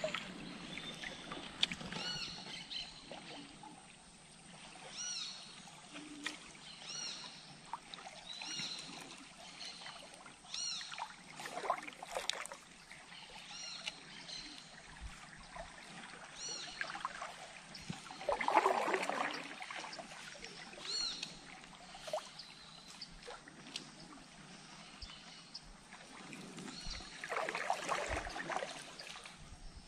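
A bird calling over and over, a short arched chirp every second or two, over faint water noise around a small river boat. Twice, about two-thirds of the way in and again near the end, a louder swishing splash comes up for a second or so.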